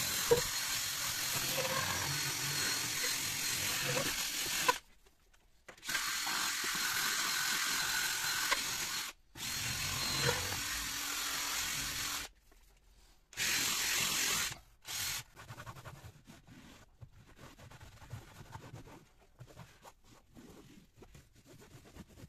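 Cordless drill spinning a soft brush attachment, scrubbing foamy cleaner into a textured floor mat. The drill runs in four bursts with short stops, with a faint steady motor whine. After the last burst come fainter, irregular rubbing sounds of the mat being wiped by hand with a cloth.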